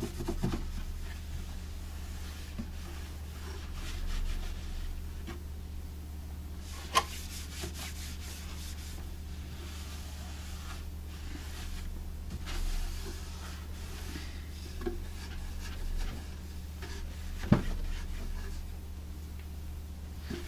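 Soft cloth rubbing over a wooden radio cabinet in irregular strokes, buffing off a coat of beeswax-and-orange-oil wax. Two sharp knocks, about a third of the way in and again near the end, over a steady low hum.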